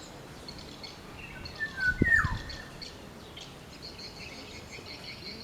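Black-naped oriole giving a short fluting whistle about two seconds in: a few clear notes ending in a downward slur. A low thump lands at the same moment. Thin, high chirping carries on in the background.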